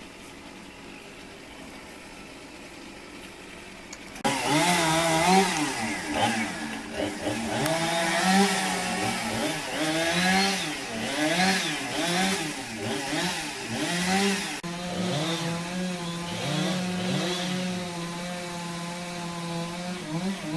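Chainsaw engine: a faint steady hum for about the first four seconds, then the saw comes in loud, its pitch rising and falling again and again as the throttle is worked. For the last six seconds or so it holds a steady high speed.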